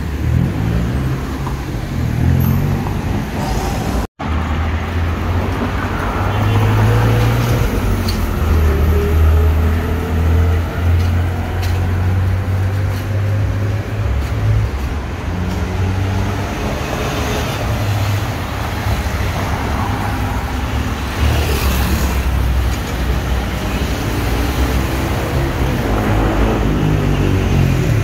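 Busy city street traffic: the steady low hum of car and bus engines passing close by. A split-second gap in the audio comes about four seconds in.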